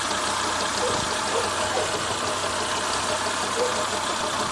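Renault Logan engine running with a fast, steady knock from its belt; the belt is defective and due for replacement.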